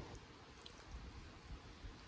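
Near silence: a faint low rumble, with one small click about two-thirds of a second in.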